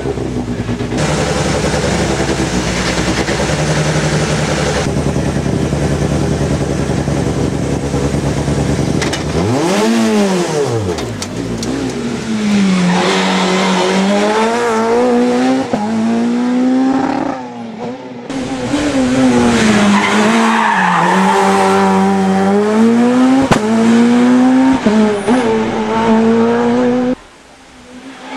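Peugeot 207 rally car engine idling steadily, revved up and back down once about ten seconds in, then driven hard through bends with the revs climbing and falling through gear changes. The sound cuts out briefly near the end.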